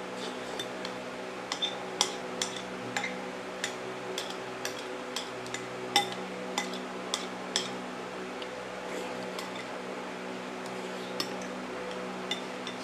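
Spoon and fork clinking and scraping against a plate while eating, in irregular sharp clicks that come thickest in the first half, with a few more near the end. A steady low hum runs underneath.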